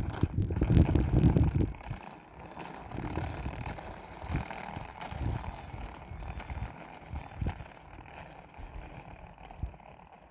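Outdoor background noise at a railway platform. A loud low rumble for the first two seconds, then a quieter steady hum with scattered knocks and clicks.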